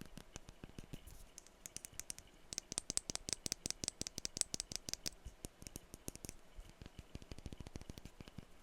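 Fast tapping on perfume bottles: a dense run of light clicks, many a second, turning sharper and brighter from about two and a half to five seconds in.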